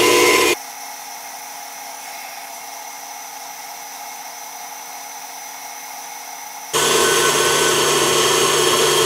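KitchenAid stand mixer running steadily, its paddle creaming butter, sugar and grated almond paste in the steel bowl. The motor hum drops much quieter about half a second in and comes back loud after about seven seconds.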